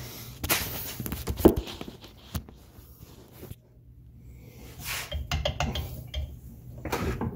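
Scattered clicks, knocks and rustling of hands working a loosened rear oil housing off a Corvair engine case, with one sharp knock about a second and a half in and a busier cluster of clicks near the end.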